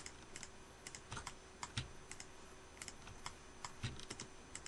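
Faint, irregular clicks of a computer mouse and keyboard, a few each second, as vertices are picked one at a time with Shift and right-click.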